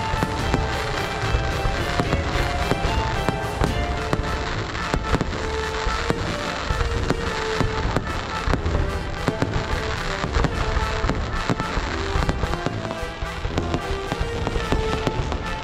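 Fireworks going off in a dense, unbroken string of bangs, with music playing over them.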